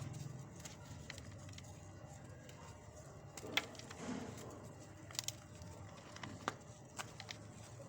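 Hard lumps of pure cement crunching and cracking as they are crumbled, with scattered sharp snaps, the loudest about three and a half seconds in.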